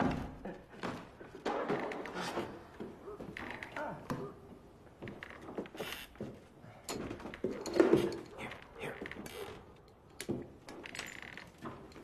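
Scattered soft knocks, clicks and rustles, uneven and without a rhythm, with a few short, faint voice sounds. The loudest knock comes about two-thirds of the way through.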